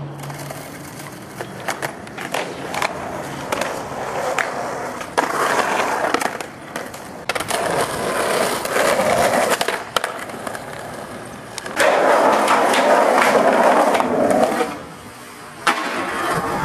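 Skateboard wheels rolling on asphalt in stretches, loudest a few seconds before the end, with sharp clacks of the board scattered through. The rolling cuts off suddenly near the end, followed by one sharp crack.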